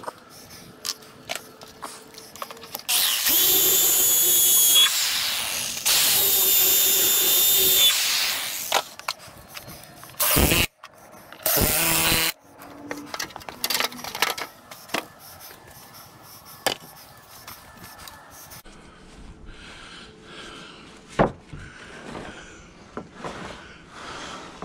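Cordless drill boring into a wooden beam overhead: two runs of about two seconds each with a steady whine, then two short bursts, with light knocks and handling clicks between and after.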